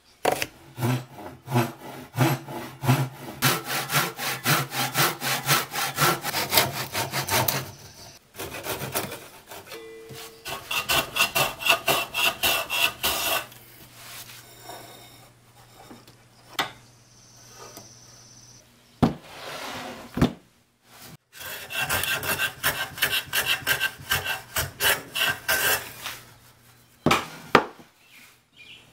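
Handsaw crosscutting the end of a laminated softwood block, in several runs of quick back-and-forth strokes, with a few single strokes between the runs. A faint steady low hum lies underneath.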